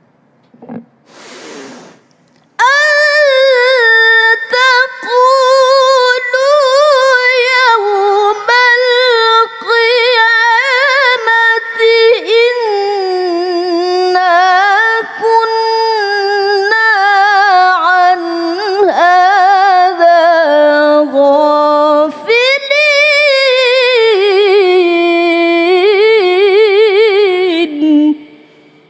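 A woman reciting the Quran in the melodic tilawah style into a microphone: an audible breath, then one long, nearly unbroken phrase of held notes with rapid wavering ornaments, sinking lower near the end.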